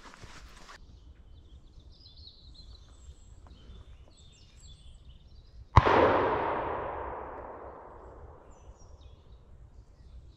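A single shotgun shot a little past halfway, its report rolling away over about three seconds. Faint bird chirps come before it.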